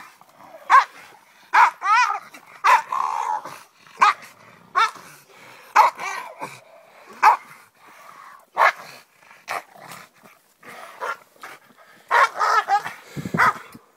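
Hog-catching dogs barking excitedly at a trapped hog, sharp barks roughly once a second with a quicker run of barks near the end.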